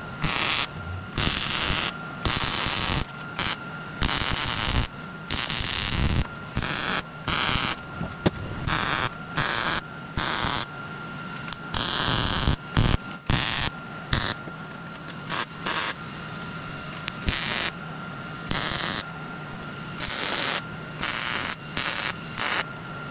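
MIG welder stitch welding steel car-body sheet metal, crackling in many short bursts that start and stop abruptly, each from a fraction of a second to about a second long.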